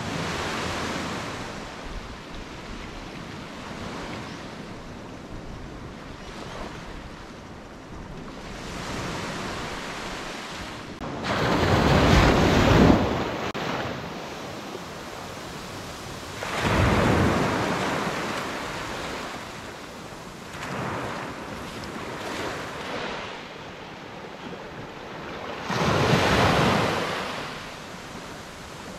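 Small waves breaking and washing up a sandy beach, swelling and fading every several seconds, the loudest surge about twelve seconds in.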